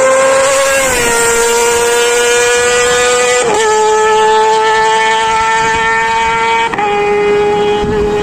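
Sportbike engine held at very high revs as it pulls hard, a high steady wail with a faint wind rush behind it. The pitch drops a step at three upshifts, about a second, three and a half seconds, and nearly seven seconds in.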